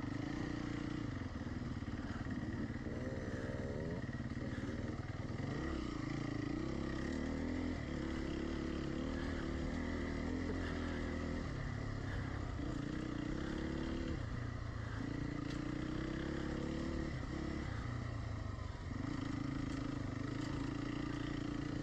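Dirt bike engine running under load on a trail, its revs rising and falling again and again with the throttle.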